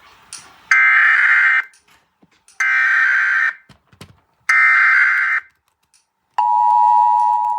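Emergency Alert System broadcast opening: three short bursts of SAME digital header data, a buzzy warbling screech about a second long each, spaced about two seconds apart. About six seconds in, the steady two-tone EAS attention signal starts. This sequence marks the start of an alert message.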